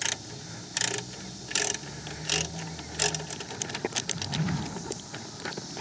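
Hand socket ratchet clicking through repeated strokes, about one stroke every three-quarters of a second, then quicker, lighter clicks later on, as a nut is run down.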